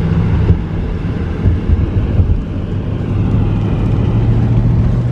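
A car driving on a wet road, heard from inside the cabin: a steady low road rumble and engine hum, the hum rising slightly in pitch in the second half.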